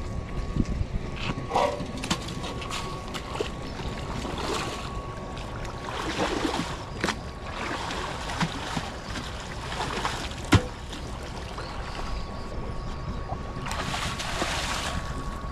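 Water splashing and sloshing in several short bursts over a steady low rumble and a faint steady whine, with scattered clicks and one sharp knock about two-thirds of the way through.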